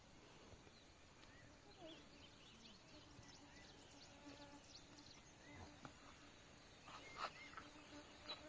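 Near silence: faint rural outdoor ambience with a few soft, short chirps. A couple of light knocks or rustles come near the end.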